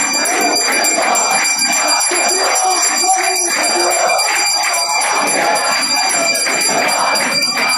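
A puja hand bell rung continuously during the temple pooja, a steady ringing made of rapid strokes. Many voices murmur and chant underneath.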